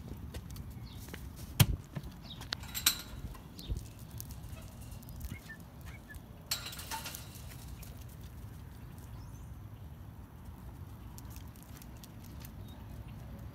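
A dog's claws tapping and scuffing on brick pavers: a few sharp clicks in the first three seconds, the loudest about one and a half seconds in, and a short scuffing rustle around seven seconds, over a low steady rumble.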